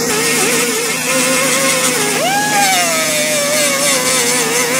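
RustBusters zinc wire spray welder running as it sprays zinc onto a sheet-metal patch: a steady hiss with a wavering hum, whose pitch jumps up about two seconds in and then slowly sinks back.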